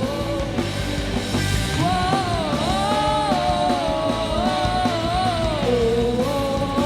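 Gospel rock song playing: a full band with a lead melody line that slides up and down.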